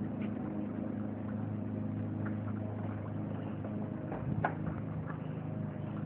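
A steady low machine hum, like a motor running, with a short knock a little past four seconds in.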